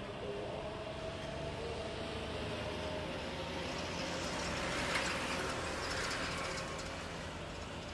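Jet engines of a Singapore Airlines Airbus A350 running at low taxi power as the airliner rolls slowly: a steady rumble and hiss with a faint whine. The hiss swells about five seconds in, then eases.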